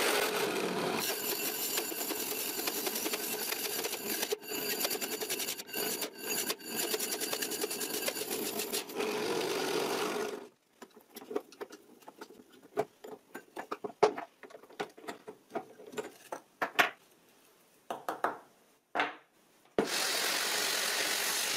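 A cheap, low-power benchtop drill press cutting into plywood with a bimetal hole saw, a loud steady grinding cut that breaks off briefly a few times, for about ten seconds. Then a quieter stretch of scattered clicks and knocks, and a steady machine noise starts again near the end.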